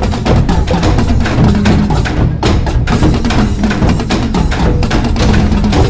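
Parade band percussion playing a fast, busy rhythm of drum strikes, with a few held low notes underneath.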